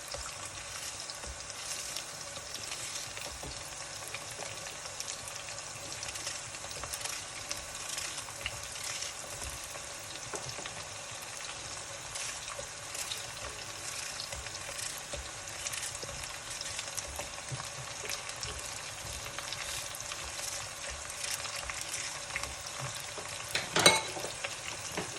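Chopped onions frying in oil with ginger, garlic and masala in a pot: a steady sizzle with small crackles throughout. A sharp knock sounds about a second before the end.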